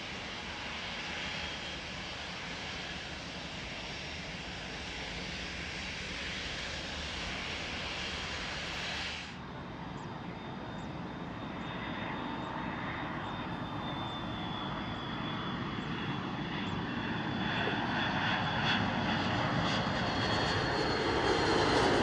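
Steady jet rush of a twin-engine widebody airliner touching down on the runway. About nine seconds in it cuts to an Airbus A330-200 on final approach, its engines' rumble and high whine growing louder as it nears.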